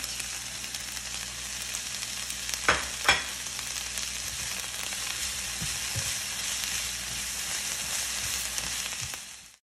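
Sliced onions, bell peppers and spinach sizzling in a hot skillet, a steady frying hiss. There are two sharp knocks about three seconds in, the vegetables are stirred with a spatula near the end, and the sound cuts off suddenly.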